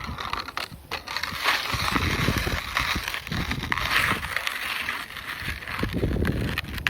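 Skateboard wheels rolling and grinding over icy, snow-covered pavement: a continuous gritty crunching with uneven low rumbles.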